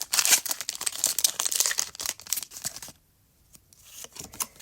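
Foil wrapper of a Pokémon card booster pack being torn open and crinkled in the hands. The crackling lasts about three seconds and then stops, leaving a few soft ticks.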